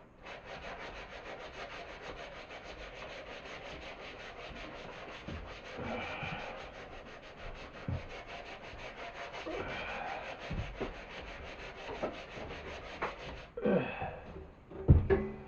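Wood being sanded: a steady, fine rasping that stops about 13 seconds in, followed by a few knocks.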